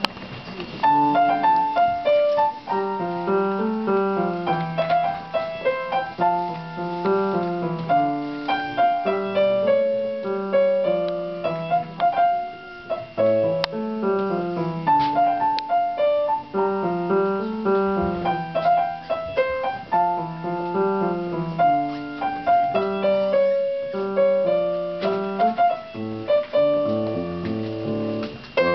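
Grand piano being played: a flowing piece with a repeating low accompaniment under a higher melody, starting about a second in.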